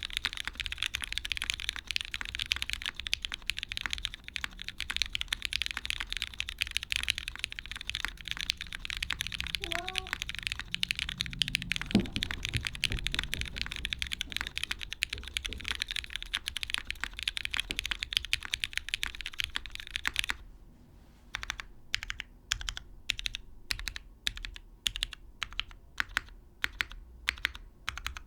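Typing on a custom mechanical keyboard with lubed linear Cherry MX Black switches, an aluminium plate, gasket mounting and GMK keycaps: fast continuous keystrokes, slowing to separate, spaced key presses for the last several seconds. A brief faint rising squeak comes about ten seconds in, and a low thump about twelve seconds in.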